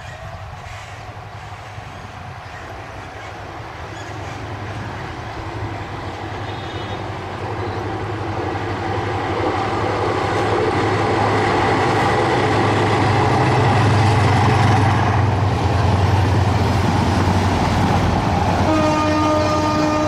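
Diesel locomotive hauling a commuter train, its engine running with a steady low drone that grows louder as the train approaches. Near the end the locomotive's horn starts one long, steady note.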